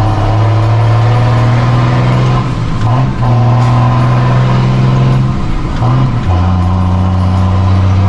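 Straight-piped diesel engine of a 1620 truck pulling hard under load, a loud steady drone. It dips twice, about two and a half seconds in and again around six seconds, as gears are changed, and settles lower after the second change.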